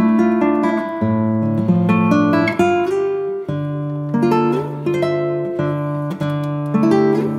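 Background music: acoustic guitar playing plucked notes and strums.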